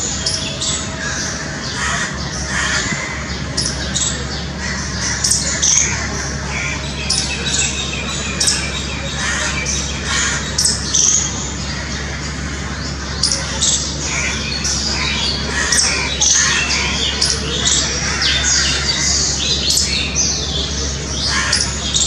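A squirrel calling with short, high-pitched chirps, repeated in quick irregular runs.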